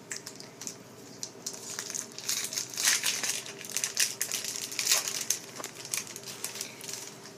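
Crinkling of a foil Pokémon booster pack wrapper being handled, a run of dry crackles that is busiest in the middle.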